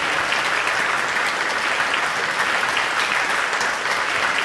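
Live audience applauding steadily, a dense patter of many hands clapping at once.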